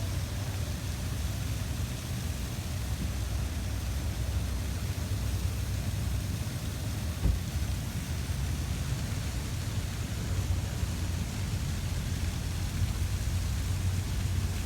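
Slow-moving freight train's intermodal cars rolling past: a steady low rumble with one short knock about seven seconds in.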